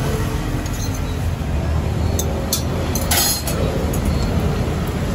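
Steady low rumble of a busy street food stall, with a few light metallic clinks of steel tongs against the steel griddle a little past the middle.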